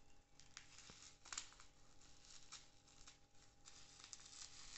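Near silence with faint rustling and a few light clicks of handling, one slightly louder about a second in.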